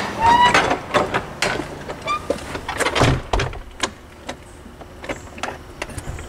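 A door's hinges squeak twice as it swings, with dull knocks about three seconds in and scattered clicks of footsteps and handling.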